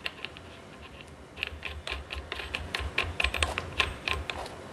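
Light metallic clicking and ticking as a steel clevis and lock nut are spun by hand onto the threaded pushrod of an E90 brake booster. The clicks come in a quick, uneven run through the middle and later part.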